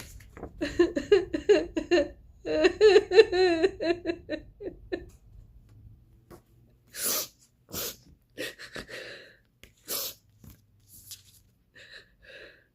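A woman sobbing in a quick run of broken, wavering cries for a few seconds, then several sharp sniffs and gasping breaths.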